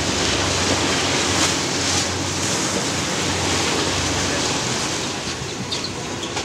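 A boat underway at sea: a steady rush of churning wake water over a low engine hum.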